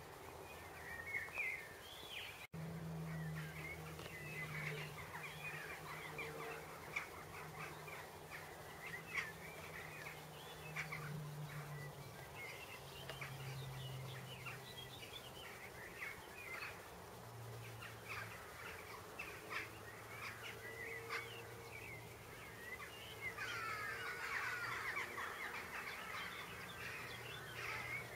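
Garden birdsong: several small birds chirping and twittering throughout, with a denser burst of trilling near the end, over a steady low hum. A brief dropout comes about two and a half seconds in.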